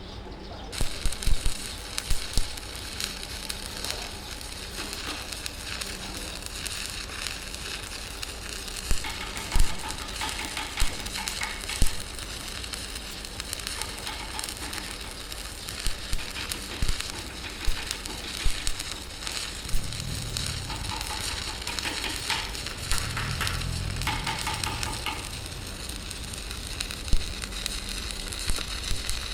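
Electric welding arc crackling and sizzling steadily on an excavator cylinder, with frequent sharp pops.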